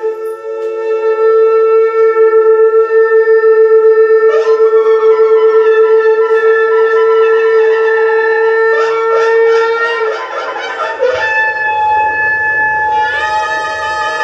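A blown wind instrument holds one long, loud note for about ten seconds, with a quieter lower note under it at first. It breaks into shorter notes, and a new, higher held note starts near the end.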